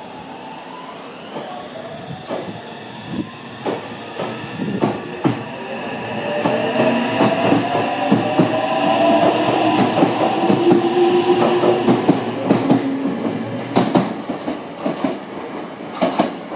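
Meitetsu 300 series electric train pulling away from a station. The motor whine rises in pitch as it accelerates, and the wheels clack over rail joints as the cars pass close by. The sound builds to its loudest about ten seconds in, then fades as the last car goes.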